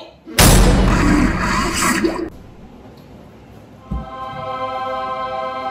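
A loud rushing, whooshing noise lasting about two seconds that cuts off abruptly. About four seconds in there is a low thump, and then music starts with sustained, steady chord tones.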